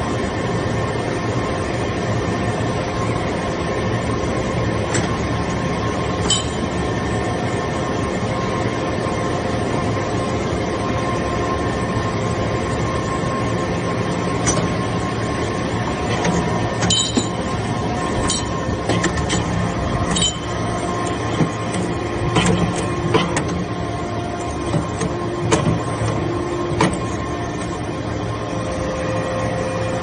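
TCM hydraulic metal-chip briquetting press running, with the steady hum of its hydraulic pump unit. Sharp metallic clicks and clanks come now and then, more often in the second half.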